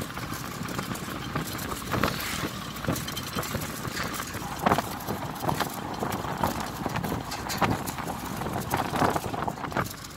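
Wind and road noise riding in the open bed of a moving pickup truck, with irregular knocks and rattles about every second.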